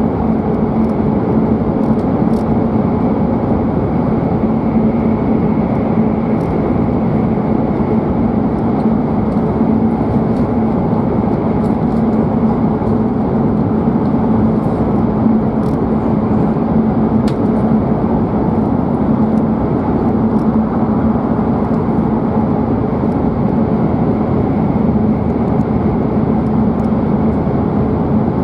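Cabin running noise of a W7 series Shinkansen at speed: a steady rumble of wheels and air with a constant low hum, and a few faint ticks.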